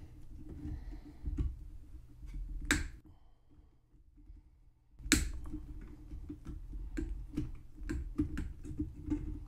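Large diagonal cutters working at and snipping through a solder terminal of an old electrolytic capacitor can on a metal chassis. Many small clicks and scrapes of the tool on the metal, with a sharp snap near the three-second mark and another about five seconds in.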